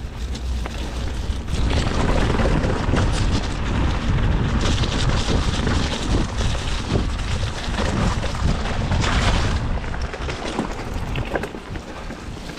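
Mountain bike riding fast down a rocky, muddy gravel trail: tyres crunching over stones and the bike rattling, with wind rumbling on the camera's microphone. The noise eases a little near the end.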